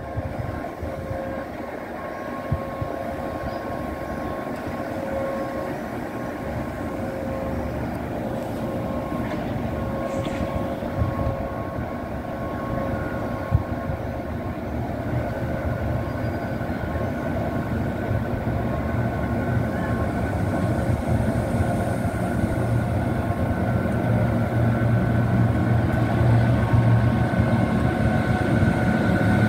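SNCF BB 26075, a BB 26000-class electric locomotive, running light at low speed toward the platform. Its hum and steady tones grow louder as it comes nearer.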